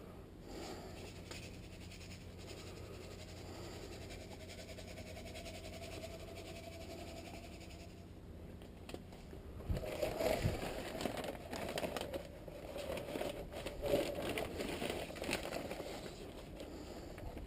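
Handling noise of clean-up work: faint rustling at first, then from about ten seconds in irregular scraping, crinkling and light clicks and knocks.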